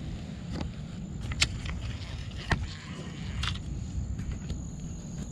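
Night insects keep up a steady, high-pitched drone under a low rumble of handling noise on the microphone. A few sharp clicks and knocks come through, the loudest about a second and a half and two and a half seconds in.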